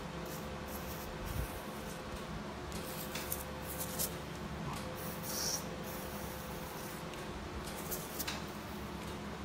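Operating-room background noise: a steady low hum with a faint tone that comes and goes, and a few soft clicks during the surgery.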